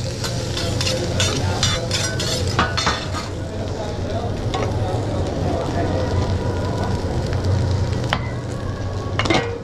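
Fried rice sizzling on a steel hibachi griddle as metal spatulas scrape and clack against the plate. Quick clicks come in the first few seconds, then steady sizzling, and a couple of sharp clacks come near the end, all over a steady low hum.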